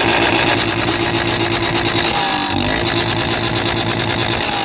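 Royal Enfield Classic 350's single-cylinder engine running through a long-bottle Punjab aftermarket silencer, held steady with a brief dip and pick-up in engine speed about two and a half seconds in.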